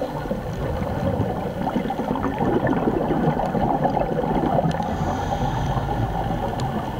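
Underwater bubbling and gurgling, typical of a scuba diver's exhaled air streaming from the regulator, with a faint high hiss about five seconds in.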